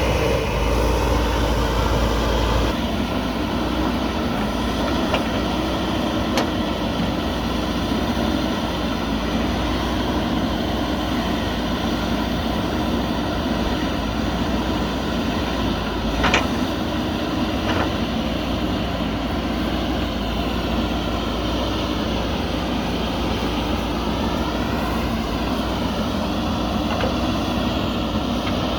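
JCB backhoe loader's diesel engine running steadily at work, its note dropping a little about three seconds in and wavering up and down near the end, with a single sharp clank about halfway through.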